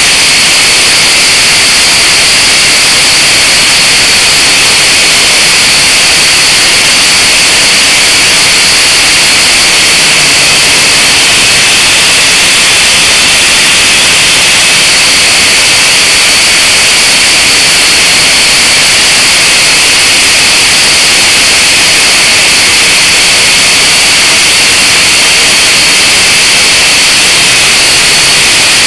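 Blade 180 QX micro quadcopter's motors and propellers in flight, picked up by its onboard camera's microphone as a loud, steady hiss with a high whine.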